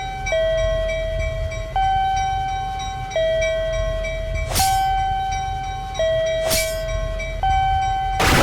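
Two-tone warning signal from an animated railroad crossing, alternating between a higher and a lower held pitch about every second and a half over a steady low train-like rumble. Two short whooshing hits cut through it, and a loud burst of noise starts near the end.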